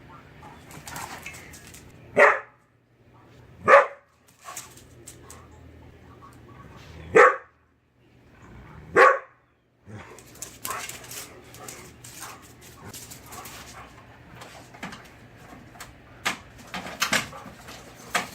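A dog barking: four loud single barks spread over the first nine seconds, each short and sharp, followed by only quieter scattered clicks and low background noise.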